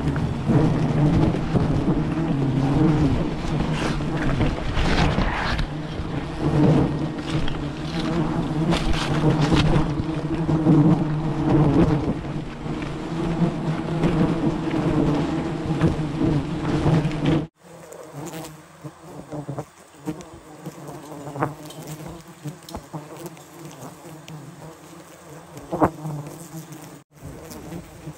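A swarm of wild honey bees buzzing, a loud, dense, steady drone. After a sudden cut about two-thirds of the way through it becomes much fainter, with a few light knocks.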